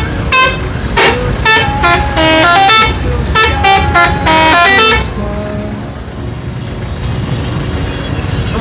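Bus telolet horn, a multi-tone musical horn, playing a quick run of short blasts that jump between pitches like a tune, then stopping about five seconds in, leaving a steady engine and traffic rumble.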